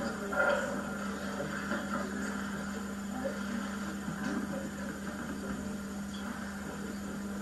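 Steady low hum and hiss of an old videotape soundtrack, with faint indistinct room noise and a brief louder sound about half a second in.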